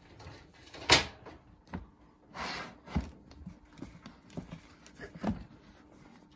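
Knocks and taps as a cat grapples a fluffy wand toy on a plastic box inside a wire cage, the loudest about a second in and others spread through, with a short rustling rush about two and a half seconds in.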